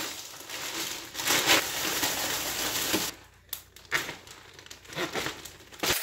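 Zip-top plastic freezer bag packed with ice crinkling and rustling as it is handled, going quieter for a moment about halfway through before more rustling near the end.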